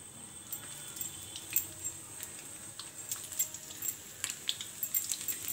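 Chopped garlic frying in a little oil in a kadai: scattered crackles and pops that grow busier toward the end as the garlic starts to bubble.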